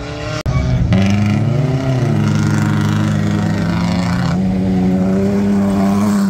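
Off-road 4x4 race vehicle's engine running hard at high revs. The pitch climbs and falls once about a second and a half in, then holds steady.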